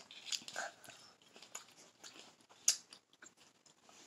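Quiet chewing and biting of green grapes: faint wet clicks and small crunches, with one sharper click a little past halfway.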